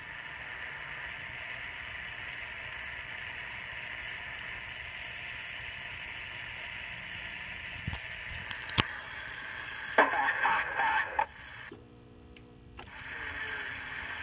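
Cobra 142GTL CB radio receiver hissing with steady static through its speaker. About ten seconds in, a short garbled voice transmission breaks through. The static then drops out for about a second, leaving a low buzz, before the hiss comes back. A few sharp clicks come shortly before the transmission.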